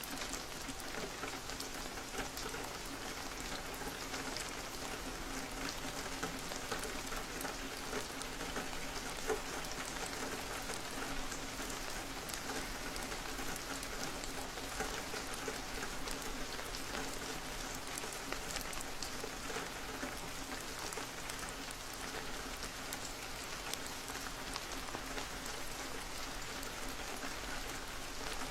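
Steady rain on a window: an even hiss of falling rain with many small drops tapping against the glass.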